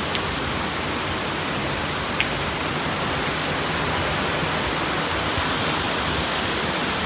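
Heavy rain falling hard, a dense, even hiss of downpour, with a couple of faint ticks in the first few seconds.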